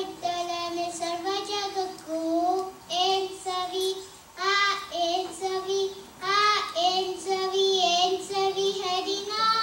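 A young boy singing a Kannada devotional song solo and unaccompanied, in phrases with short breaks between them.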